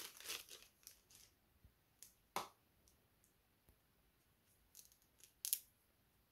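Small plastic accessory packet rustling as it is unpacked, fading out within the first second or so, followed by a few scattered clicks of small parts being handled, the sharpest about two and a half seconds in and another near five and a half seconds.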